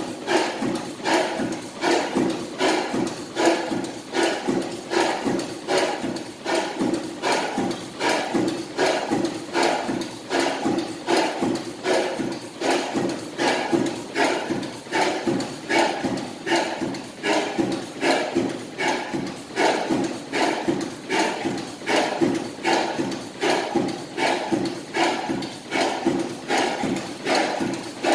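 1929 Robey horizontal oil engine running steadily, giving an even, regular beat of sharp mechanical knocks as it turns its large flywheel.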